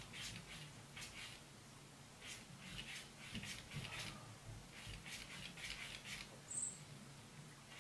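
Cat lapping water from a bowl: soft wet laps, about two to three a second, in short runs with brief pauses.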